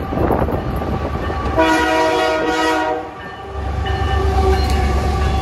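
Canadian Pacific diesel freight locomotive's air horn sounding one long chord of about a second and a half, then a shorter, quieter blast, over the low rumble of the locomotive drawing near.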